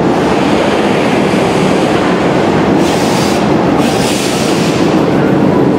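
A vintage Sprague-Thomson Paris metro train running along a station platform on steel wheels, loud and steady, with a spell of added hiss about three seconds in.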